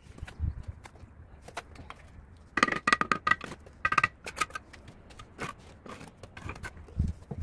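Steel mason's trowel scraping mortar and knocking on hollow clay bricks. About two and a half seconds in comes a run of ringing clinks, with another short run near four seconds, as the brick is struck with the trowel.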